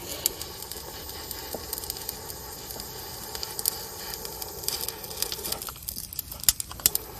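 Handheld torch flame running with a steady hiss, broken by scattered crackles and sharp ticks.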